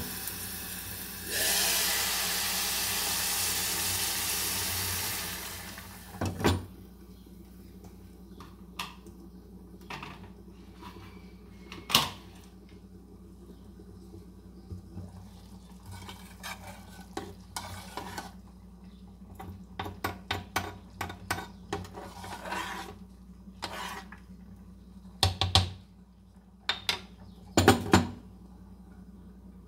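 Hot water poured from an electric kettle into a pot of rice, hissing and sizzling loudly as it hits the hot pan for about five seconds. Then the pot cooks quietly, with scattered clinks and knocks of a glass pot lid and utensils over a faint steady hum.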